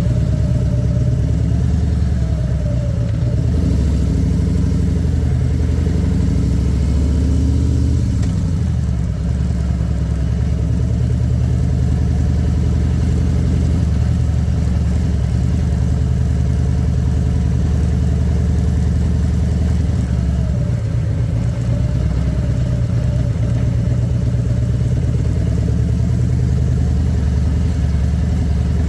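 Harley-Davidson Electra Glide Standard's Milwaukee-Eight V-twin running steadily on the road, its note shifting up and down a little a couple of times.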